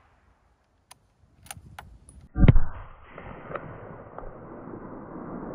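A few faint clicks, then a single rifle shot from a .30-06 Springfield Tikka T3X Superlite about two and a half seconds in, the first test shot of Norma Whitetail 150 grain soft points. A steady rushing noise of wind on the microphone follows the shot.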